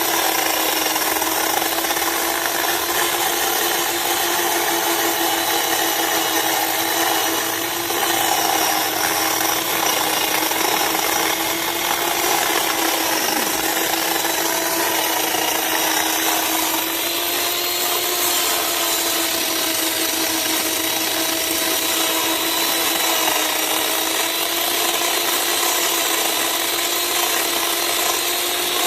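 Chainsaw running steadily while cutting tree wood: one unbroken high engine tone over rasping saw noise, its pitch wavering slightly a few times under load.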